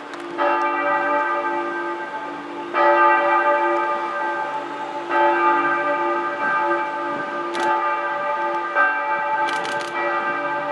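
Church bells of a Protestant church pealing for noon, several bells swinging with fresh strokes every couple of seconds over a steady wash of ringing tones. A quick run of sharp clicks comes in near the end.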